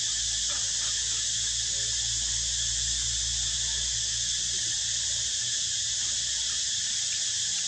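Steady high hiss, with a low hum beneath it that fades out about two-thirds of the way through.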